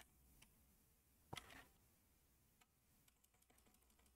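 Faint computer keyboard keystrokes over near-silent room tone, with one short louder clatter of keys about a second and a half in and scattered light taps near the end.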